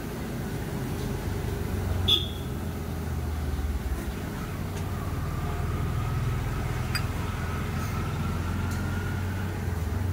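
Steady low rumble of background noise, with one sharp click about two seconds in and a faint thin whine in the middle.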